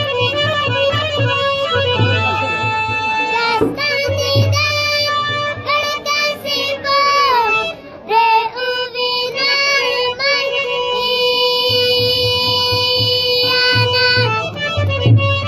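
A boy singing a Pashto song in a high, strong voice, his held notes sliding between pitches, over steady held instrumental notes and a repeated low beat.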